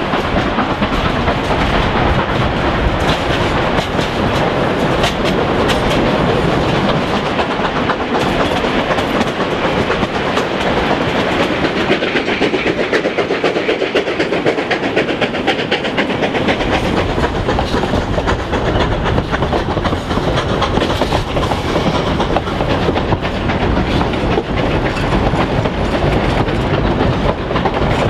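Durango & Silverton narrow-gauge train running on the rails, a steady rolling noise with the wheels clacking over rail joints. The deep rumble fades for a few seconds around the middle.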